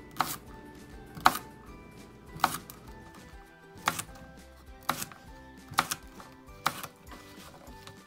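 Knife slicing a cucumber into rounds on a wooden cutting board: about seven sharp chops, roughly one a second, over background music.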